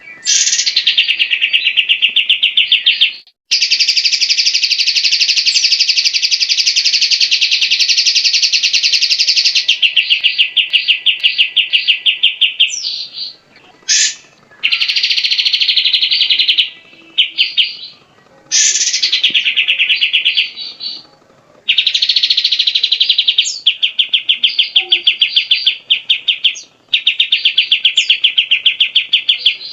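Cucak jenggot (brown-cheeked bulbul) singing a series of loud, very rapid chattering trills, each lasting one to several seconds, with short gaps and a few quick sharp notes between them.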